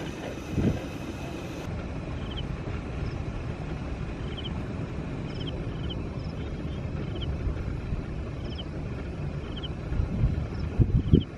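Steady low wind rumble on the microphone, with short high bird chirps recurring every second or so and a few dull thumps near the end.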